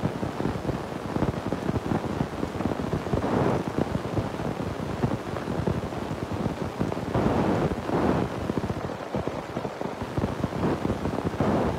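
Heavy rain mixed with hail pelting rooftops: a dense, steady patter of countless small impacts that swells louder a few times.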